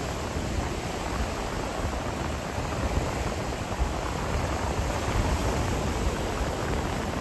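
Steady rush of sea surf at high tide, with wind buffeting the microphone in uneven low rumbles.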